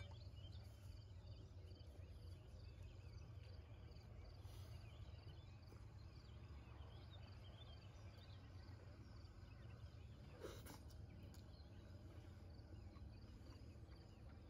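Near silence: faint outdoor ambience, a low steady rumble with faint high chirping, and one brief click about ten and a half seconds in.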